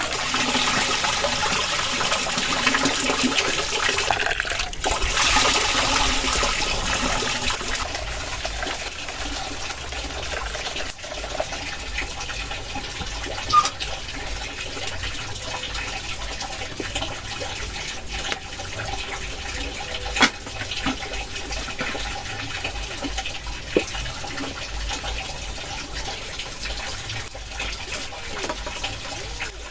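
Strong wind rushing steadily, heaviest in the first several seconds, with a few short sharp knocks later on.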